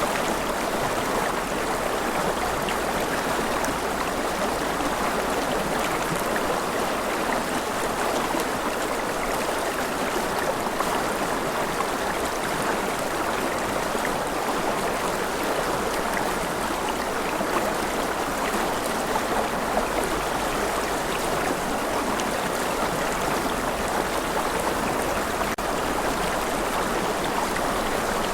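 Steady rain falling: an even, continuous hiss flecked with fine patter, unchanging throughout.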